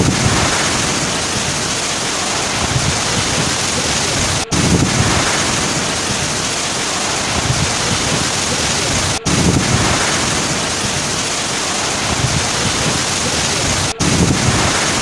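Heavy rain, a dense steady rushing hiss. It repeats as a short loop, with a brief gap about every four and a half seconds and a slight low rumble just after each gap.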